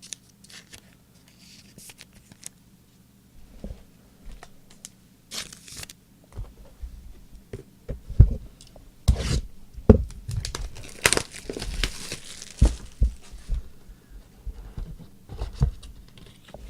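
Plastic wrap being torn and crumpled off a box of trading cards, with the busiest, longest tear about two-thirds of the way in. Among the rustling are a few dull knocks of the box being handled on the table.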